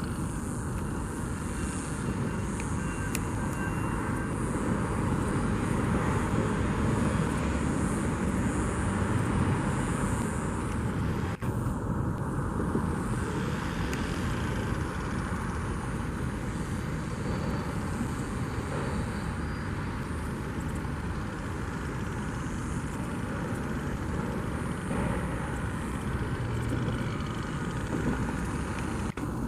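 Steady outdoor rumble and hiss of distant vehicle traffic, holding an even level, with a brief dropout about eleven seconds in.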